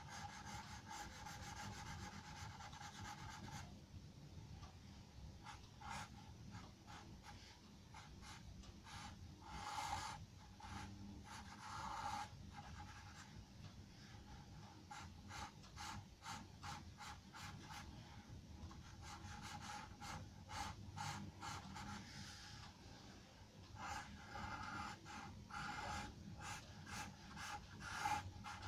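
Charcoal pencil scratching on drawing paper in many short, quick shading strokes, faint, with a few louder strokes about ten and twelve seconds in and a busier run near the end.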